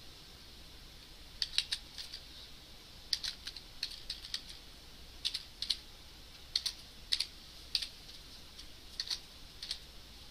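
Typing on a computer keyboard in short runs of keystrokes with pauses between them, starting about a second and a half in.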